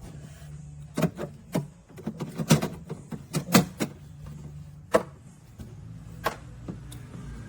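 A series of sharp clicks and knocks, bunched in the first few seconds and spaced out after that, over a steady low hum.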